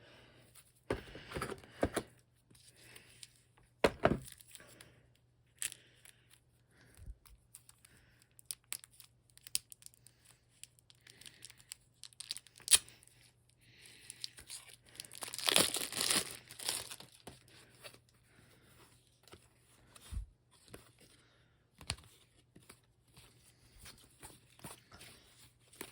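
Board game box contents being handled: scattered clicks and knocks of cardboard and paper pieces, with a longer stretch of crinkling or tearing packaging about halfway through.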